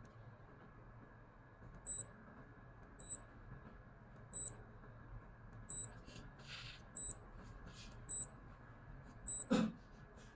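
Digital wristwatch beeping: a short, high-pitched beep repeated about every 1.2 seconds, seven times. There is faint rustling of handling between the beeps and a brief dull knock near the end.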